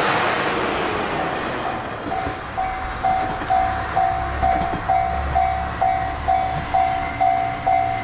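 JR Shikoku 1500 series diesel railcar passing close and pulling away, its running noise fading over the first two seconds to a low engine rumble. About two seconds in, a level-crossing alarm starts ringing steadily, about two dings a second.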